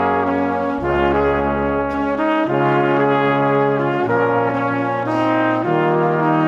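Background music of slow, held chords that change about every one and a half seconds.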